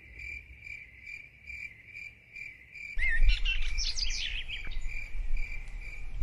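Cricket chirping at an even pace, about two or three chirps a second. About halfway through, birds start chirping over it and a low rumble comes in.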